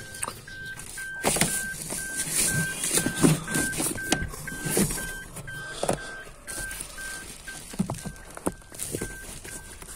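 A car's warning chime beeping evenly about twice a second, one high tone, over the crinkle and rustle of plastic seat covers being handled.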